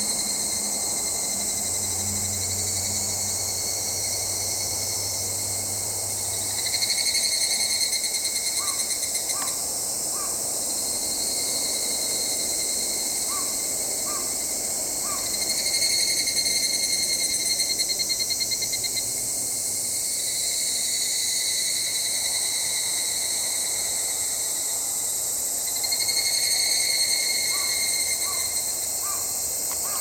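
Higurashi (evening cicadas, Tanna japonensis) calling over a steady high-pitched insect chorus. Three times, a few seconds each, a louder, rapidly pulsing phrase rises out of the chorus: about a quarter of the way in, around the middle, and near the end.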